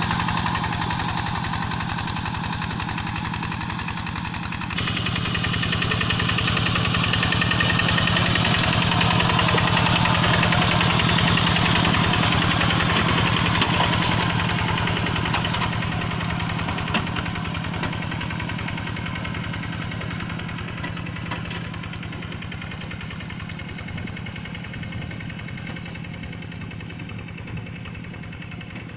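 Diesel engine of a Quick G1000 hand tractor running steadily with a regular firing beat. It gets louder about five seconds in, then fades gradually over the second half.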